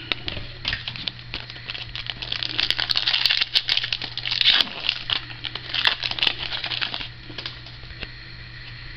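Plastic wrapper of a Contenders football trading-card pack being torn open and crinkled in the hands: a dense crackling that dies down about seven seconds in.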